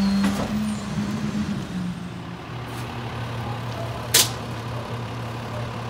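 Autocar WXLL garbage truck's engine running steadily at raised revs, then dropping to a lower idle about two seconds in. A short, sharp hiss of air from the truck's air system comes a little after four seconds.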